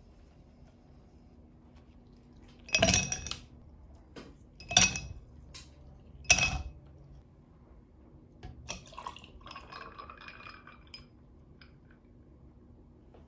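Three ice cubes dropped one at a time into a tall drinking glass, each landing with a sharp ringing clink. About two seconds later, milk is poured over the ice, a soft splashing pour with light crackles and ticks from the ice.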